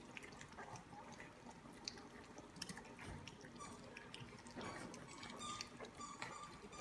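Litter of three-week-old Lab-mix puppies lapping and smacking at soft mush in a shallow feeding pan: faint, wet clicking and licking sounds from many small mouths at once. The mush is their first solid food.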